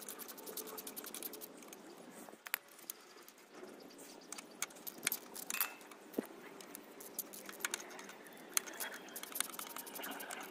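Hand ratchet and socket clicking on a motorcycle's footpeg-bracket bolts, with light irregular metal clinks as the aluminium bracket and tools are handled.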